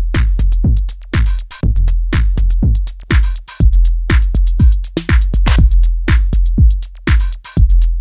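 Drum machine beat with a deep, steady low end and sharp, bright hits in a repeating rhythm, first driven through a Thermionic Culture Culture Vulture Super15 valve distortion unit, then heard dry with the unit bypassed from partway through.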